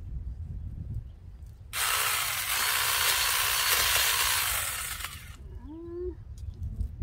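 Cordless mini chainsaw running and cutting through a tree branch, starting a little under two seconds in and stopping after about three and a half seconds.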